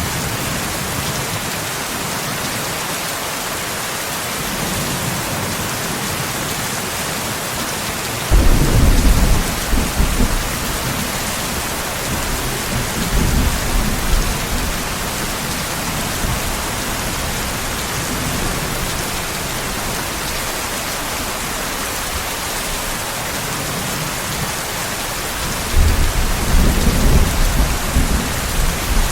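Steady heavy rain with thunder rumbling three times: a strong rumble about a third of the way in, a weaker one a few seconds later, and another strong one near the end.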